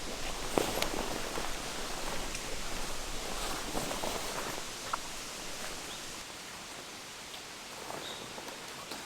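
Rustling with scattered light clicks and taps over a steady outdoor hiss.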